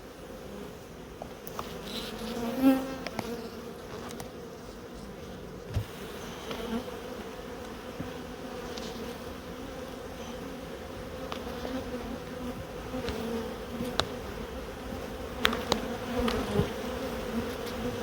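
A honey bee colony buzzing around an opened hive: a steady hum with a few light knocks and clicks.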